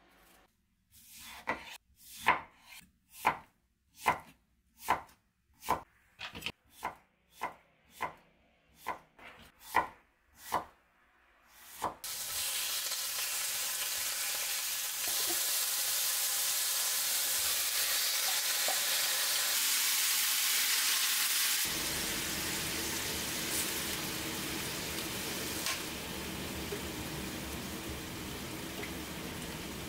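A kitchen knife chopping daikon radish on a bamboo cutting board, about a dozen strokes at roughly one a second. About twelve seconds in, this gives way to a steady sizzle of pork belly frying in a frying pan, stirred with chopsticks. Later the sizzle turns somewhat quieter, with daikon slices in the pan.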